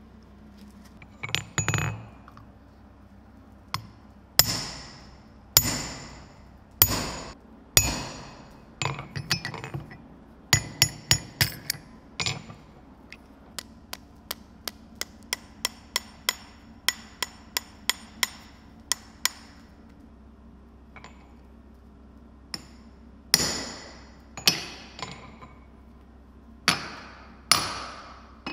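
Hand hammer striking the small domed steel bowl of a coffee scoop on an anvil, each blow ringing. A handful of heavy blows, then a run of lighter taps at about two a second, then four more heavy blows near the end.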